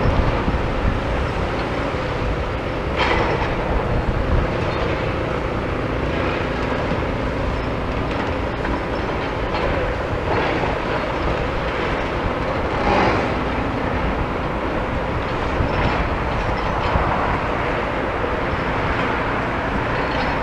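Demolition excavator working on a building: a steady, dense rumble and clatter with a few sharp cracks and knocks of breaking debris.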